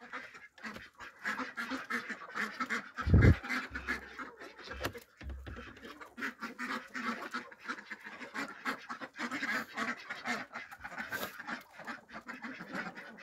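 Ducks quacking over and over among a feeding mixed poultry flock, with one loud low thump about three seconds in.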